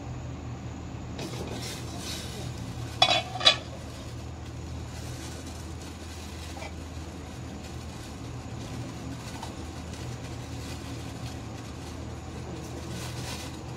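A glass pot lid is lifted off a steel cooking pot, with two sharp ringing clinks about three seconds in, over a steady low hum and the faint hiss of water heating in the pot.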